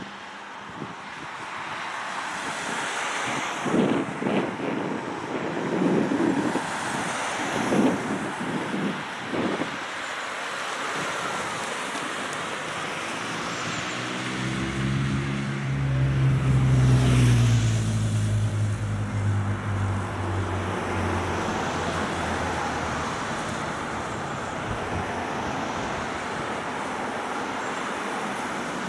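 Cars driving past on a road over steady traffic noise. About halfway through, one vehicle passes close by and is the loudest sound, its engine pitch falling as it goes by.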